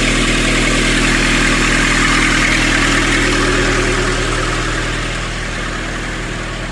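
Nissan Urvan diesel engine idling steadily while warming up, running evenly now that its diesel injection pump has been repaired.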